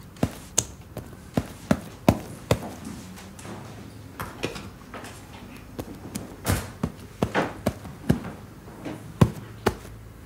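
Irregular sharp slaps and smacks, roughly two a second, of a toddler's paint-covered hands on fabric sofa cushions.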